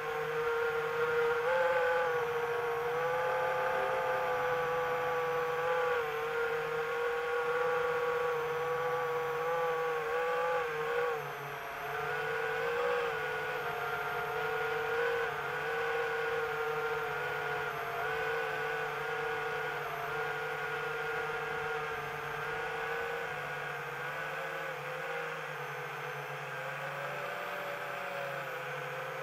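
Multirotor drone's motors and propellers whirring steadily, the pitch wavering slightly up and down with throttle changes, with a dip about eleven seconds in.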